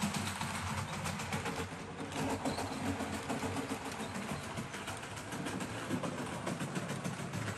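Model passenger train rolling around a curve of track, its wheels clicking rapidly over the rails over a steady mechanical hum.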